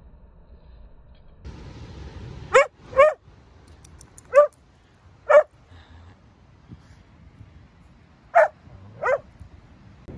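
A dog barking six times: short, sharp barks, a quick pair, two single barks, then another pair near the end.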